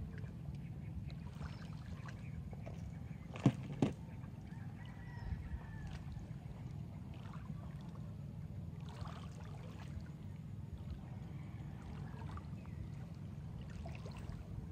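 Small waves lapping on a stony seashore, heard as a steady low rumble, with two sharp clicks close together about three and a half seconds in.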